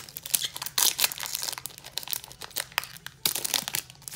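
Foil wrapper of a Pokémon trading-card booster pack crinkling and tearing as it is ripped open by hand, a dense run of sharp crackles.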